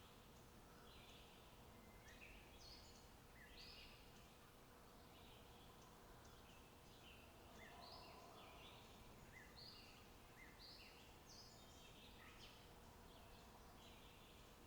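Faint birdsong: several small birds chirping and calling in quick, overlapping short phrases, over a low background hiss.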